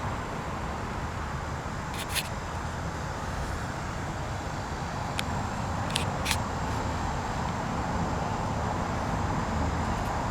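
Steady outdoor background rumble and hiss, with a few short sharp clicks about two seconds in and again around five to six seconds in.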